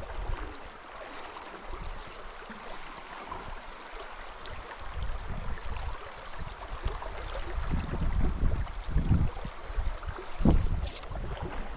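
Shallow river rippling over gravel, with gusts of wind buffeting the microphone in low rumbles, strongest in the second half.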